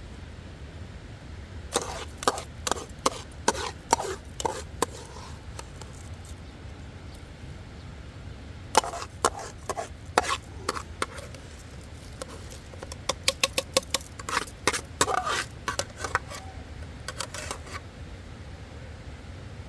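Three bursts of quick, sharp knocks and clinks, some with a brief ring, over a steady low rumble.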